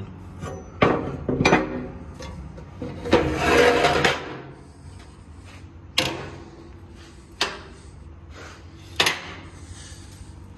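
Hands handling the steel parts of a custom Santa Maria grill: a few sharp knocks on the metal, and a second-long rough sliding rub about three seconds in.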